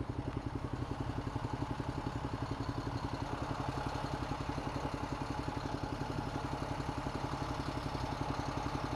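Ducati Multistrada 1200's L-twin engine idling steadily with an even pulse while the motorcycle stands still.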